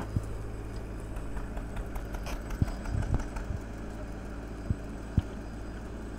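Diesel engine of a JCB 3DX backhoe loader running steadily as it works, a low hum, with a few short, dull thumps scattered through.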